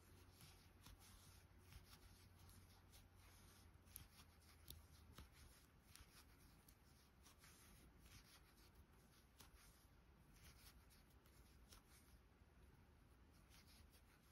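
Near silence, with faint rustling and scattered light ticks of a metal crochet hook working aran yarn through single crochet stitches.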